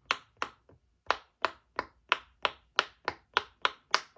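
Silicone push-pop bubble fidget toy being popped bubble by bubble: a quick regular run of crisp pops, about three a second, with a short pause about a second in.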